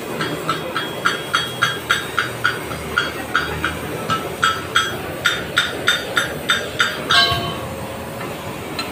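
Hammer striking metal in a steady rhythm, about three blows a second, each blow ringing; the blows stop after about seven seconds with one louder, longer ringing clang.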